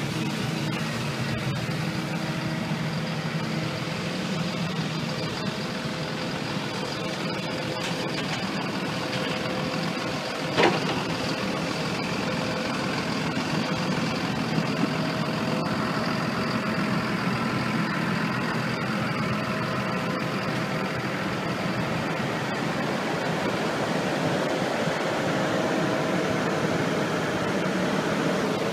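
Caterpillar bulldozer's diesel engine running steadily at idle, with one sharp clank a little over ten seconds in.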